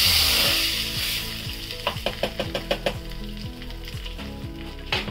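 Hot tempering oil with mustard seeds, dried red chillies and curry leaves poured into a red chutney, sizzling loudly and dying away over about a second and a half. Then a quick run of light clicks as a spoon stirs it in the plastic tub, and one more click near the end.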